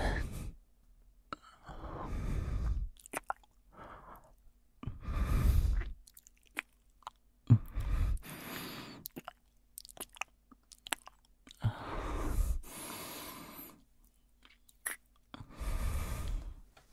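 Kissing sounds: wet lip smacks and clicks mixed with breaths, in about five bursts of one to two seconds each.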